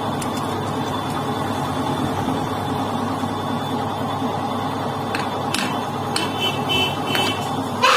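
Metal lathe running steadily in a machine shop. A few sharp clicks and a faint high squeal come in over the second half.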